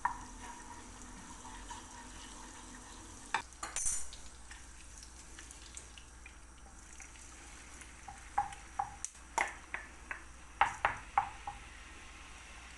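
Kitchen utensil clatter: a metal spoon or cutlery clinking against dishes or a pan, a couple of knocks and then a quick run of about seven short ringing clinks.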